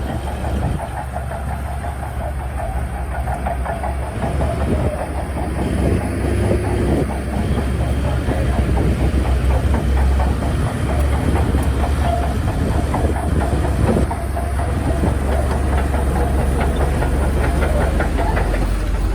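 Crawler bulldozer's diesel engine running under load with a deep rumble, over a continuous rapid clanking and clatter of steel tracks.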